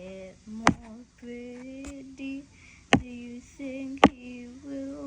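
A high voice singing drawn-out held notes without clear words, with three sharp, loud knocks in between that stand out above the singing.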